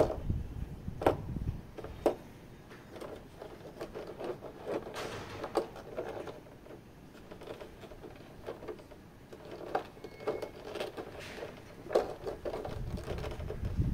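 Hands handling a boxed collectible action figure and its packaging: scattered sharp clicks and taps with spells of rustling, the loudest clicks near the start and about twelve seconds in.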